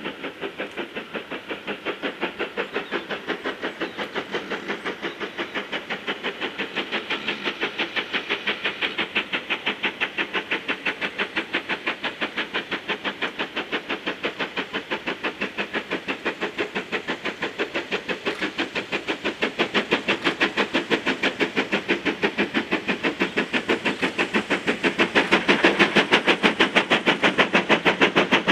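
GWR 5101 class 2-6-2 tank engine No. 5199 working hard with a short goods train: its steam exhaust beats come in a fast, even rhythm and grow louder as it approaches, most of all in the last few seconds.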